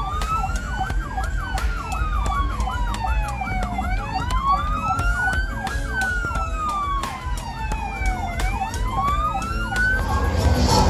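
Police siren wailing, slowly rising and falling about every four and a half seconds, with a faster repeating yelp tone layered over it and a low engine rumble underneath. Near the end it cuts to music with a voice.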